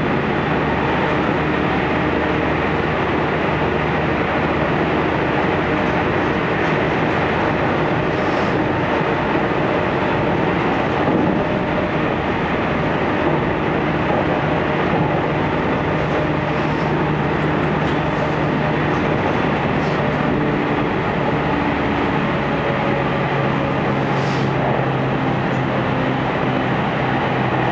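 Inside a JR 313 series electric train running at speed: a steady rumble of wheels on rail with a low hum that shifts slightly in pitch a couple of times.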